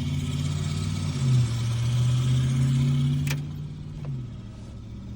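A 2003 Honda Civic's engine running at idle, a steady low hum that shifts slightly about a second in and fades about four seconds in. A single sharp click about three seconds in.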